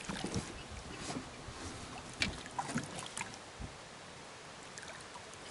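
Small splashes and drips of water as a smallmouth bass is held in the lake by hand at the side of a boat and released, over a steady background hiss. The splashes are short and uneven, mostly in the first three seconds, with a few more near the end.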